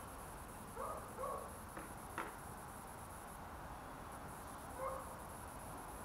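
A dog barking three times in short, slightly rising yips, with a single sharp click about two seconds in.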